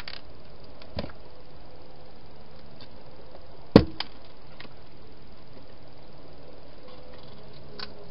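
A hedgehog moving into a clear plastic feeding box: a few sharp knocks, one about a second in, a loud one near four seconds in with a smaller one just after, and a faint one near the end, over a steady hiss.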